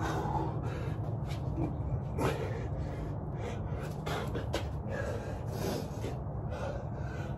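A man breathing hard and gasping through a rep of three-pump burpees, with a few soft knocks from hands and feet on the floor, over a steady low hum.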